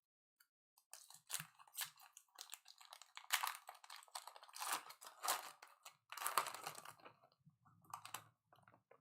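Crinkling and rustling of a foil trading-card pack wrapper being torn open and handled, in irregular crackly bursts, with cards being handled.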